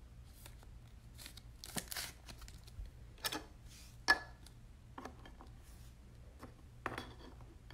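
Light plastic clicks and brief rustling scrapes from handling a sleeved trading card in a clear rigid holder and setting it on an acrylic display stand, with one sharp tap about four seconds in the loudest.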